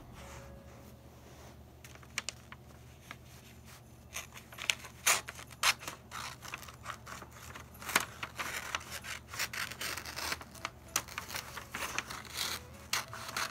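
Christmas wrapping paper being handled and folded around a small box. It is quiet at first with a few light clicks, then a run of sharp crinkling and rustling from about four seconds in.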